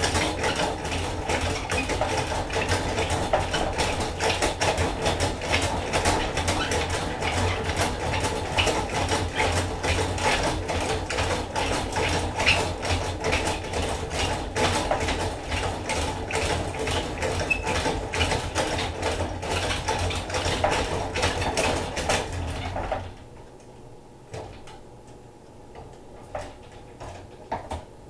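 Hand-cranked honey extractor spinning frames of honeycomb, its gears clattering steadily, then stopping suddenly about five seconds before the end. A few small knocks follow.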